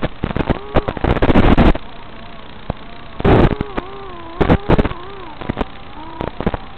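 FPV racing quadcopter's motors whining, the pitch rising and falling as the throttle changes, with several loud rushes of noise at the start and again midway.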